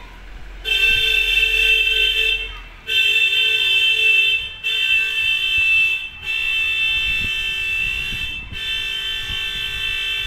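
A loud, steady high-pitched tone, like an electronic alarm or horn, sounding in five long blasts of about two seconds each with brief breaks between.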